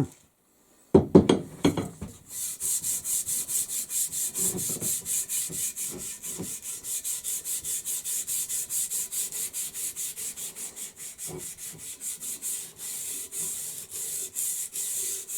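Sandpaper rubbed back and forth on a wooden axe handle in short, quick strokes, about four or five a second, after a brief handling knock about a second in.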